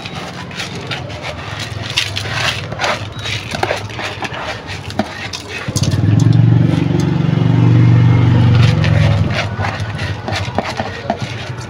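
Washed rice grains pouring and being scraped from a plastic bowl into a rice cooker pot, with many small rustles and ticks. From about six to nine seconds in, a louder low droning hum rises and fades over it.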